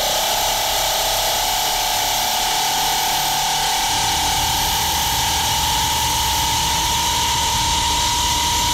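Air ratchet running without a break as it works a harmonic balancer puller off the crankshaft of an LS1 V8: a steady whine over a hiss, rising slowly in pitch, with a low rattle joining about four seconds in.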